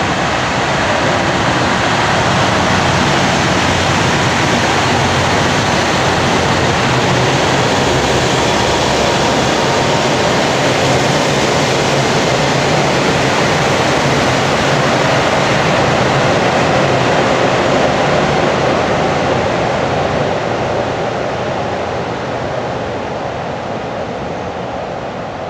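Kiha 183 diesel multiple unit running close by: a loud, steady rush of diesel engine and wheels on rail that fades over the last few seconds.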